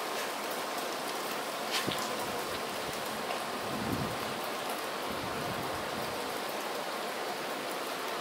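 Falling snow pattering on the snow-covered deck and trees: a steady, even hiss with scattered tiny ticks and a brief low rumble around the middle.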